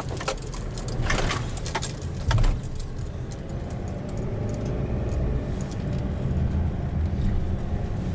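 Car driving slowly, its engine and road noise heard from inside the cabin as a steady low rumble, with several clicks and rattles in the first few seconds and a thump about two and a half seconds in.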